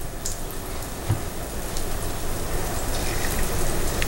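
Balls of urad dal batter frying in hot oil on a lower-medium flame: a steady sizzle with scattered small pops and crackles.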